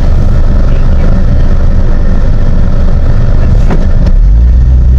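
Motor vehicle on the move: a loud, low rumble of engine and road noise. A steadier low engine drone sets in about four seconds in.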